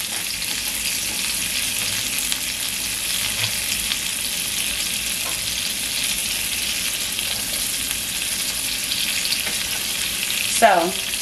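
Onion strips sizzling steadily in hot grease left from frying hamburger patties, just added to the pan. A brief sound sliding down in pitch near the end.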